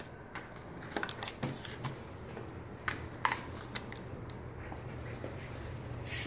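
Small plastic spoon tapping and scraping in a thin clear plastic blister tray while mixing two-part epoxy: scattered, irregular light clicks, with a brief sharp rustle near the end.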